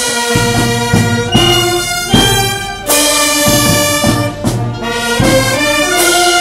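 Marching band of saxophones, clarinets and brass playing a tune in held notes that move from pitch to pitch.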